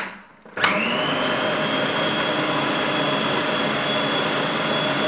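A Kenwood food processor is switched on about half a second in. Its motor spins up with a brief rising whine, then runs steadily, grinding roasted peanuts into a thick, oily paste.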